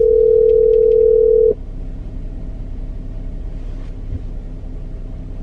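Telephone ringback tone from a phone on speaker: a steady ring that cuts off about one and a half seconds in as the outgoing call waits to be answered. After it, only the low steady hum of the car's interior.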